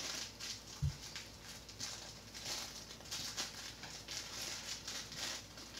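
Clear plastic packaging crinkling and rustling in short, irregular rustles as fingers pick at it to get it open, with one soft low bump about a second in.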